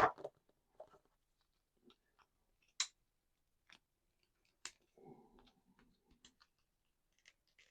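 Faint clicks and rustles of a plastic Marvel Legends Nightcrawler action figure being handled during a head swap, with two sharper plastic clicks about three seconds and nearly five seconds in as a head sculpt is worked onto the neck peg.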